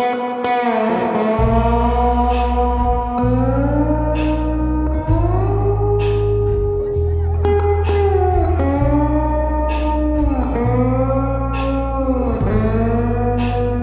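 Blues-style background music: slide guitar gliding between notes over bass and a steady drum beat.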